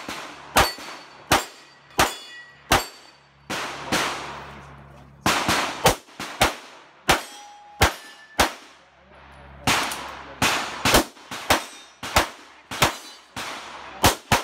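Pistol fired in quick strings, about two dozen shots in all, with steel targets ringing after some of the hits.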